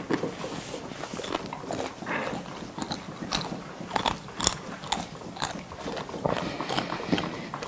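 Close chewing of a whole giant water bug: its shell and leathery wings crack between the teeth in a string of short, sharp crunches, most of them between about three and five and a half seconds in.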